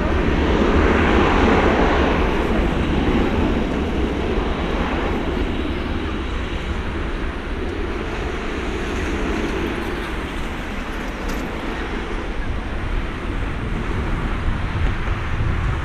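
Jet engine noise from a Boeing 737-800 freighter's CFM56 turbofans as it rolls down the runway, a steady rumble with a rushing roar that is loudest about a second or two in and then slowly fades as the aircraft moves away. Wind buffets the microphone.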